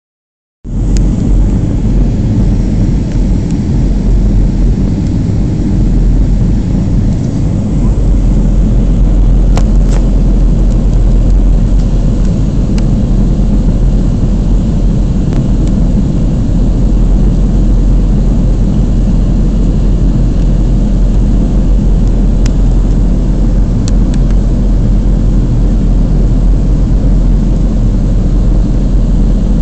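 Steady low rumble of a jet airliner's cabin in flight: engine and airflow noise heard from inside the fuselage, with a few faint clicks.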